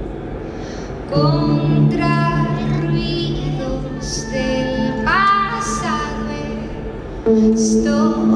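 Electronic music played live: sustained synthesizer chords, growing louder about a second in and again near the end, under a melodic line that slides and bends between notes.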